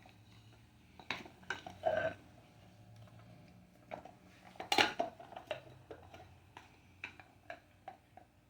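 Scattered clicks and clinking knocks of hard objects, loudest about two seconds in and again near five seconds.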